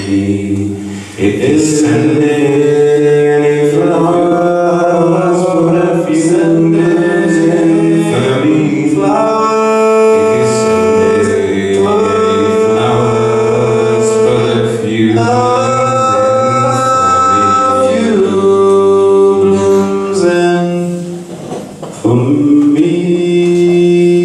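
Two men's voices vocalising into microphones in long, held chant-like tones, a low one and a higher one together, shifting pitch every second or two. The sound drops away briefly near the end before the held tones return.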